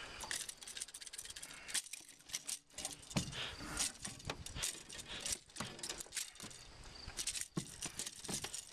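Irregular metallic clicks, taps and rattles as pliers work a crankbait's hooks and swivels free from a fish lying on the floor of an aluminum boat.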